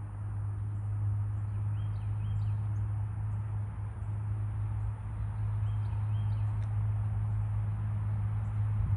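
Outdoor ambience: a steady low hum, with faint short high chirps repeating in the background.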